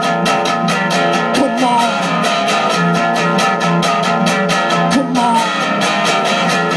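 Guitar strummed fast and evenly, a driving rhythm of quick, regular strokes.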